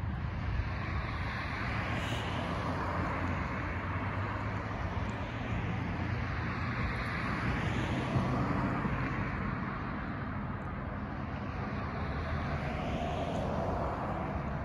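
Road traffic: cars passing on the street, a steady noise of tyres and engines that swells and fades as each one goes by.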